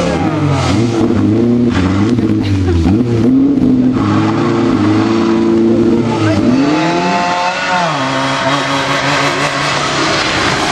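Rally car engine revving hard, its pitch climbing and dropping back again and again as it changes gear and lifts, then running steadier at lower revs in the last few seconds.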